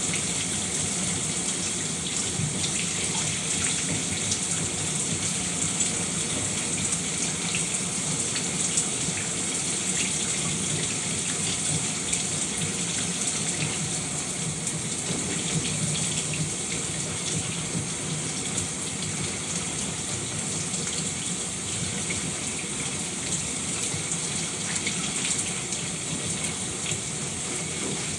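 A shower running steadily: a continuous hiss of falling water with light spattering.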